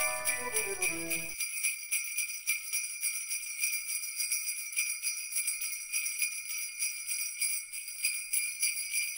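Jingle bells shaken in a steady rhythm, bright and high-pitched. A falling run of bell-like notes from the background music ends about a second in, leaving the jingle bells alone.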